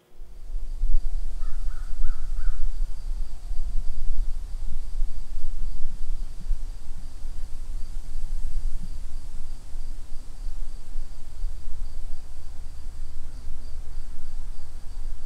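Woodland outdoor ambience: insects chirring steadily in a high, pulsing line, a few short bird chirps about two seconds in, over a heavy, uneven low rumble.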